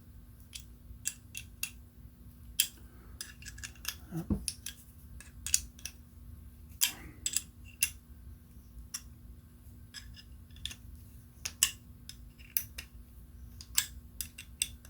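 Screws being tightened down by hand with a small hand tool: a string of sharp, irregular clicks of metal on metal and plastic.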